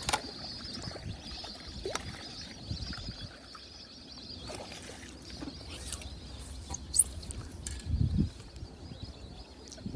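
Outdoor ambience with wind rumbling on the microphone, a steady high-pitched hum through the first half, and a few scattered sharp clicks, with a louder low gust near the end.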